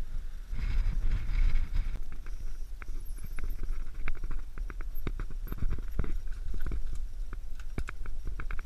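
A mountain bike rolling down a rock slab and past on a dirt trail: a run of irregular sharp clicks and knocks from the bike on the rock, starting about two seconds in, over a steady low rumble of wind on the microphone.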